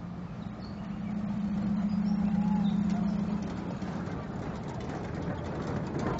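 Small open-carriage road train passing close, its drive giving a steady low hum that swells as it goes by and then eases off. A few faint bird chirps can be heard over it.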